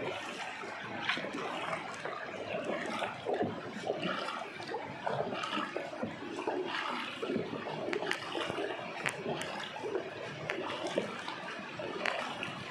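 Canoe paddles dipping and pulling through river water, with splashing, dripping and water rushing along the boat's hull.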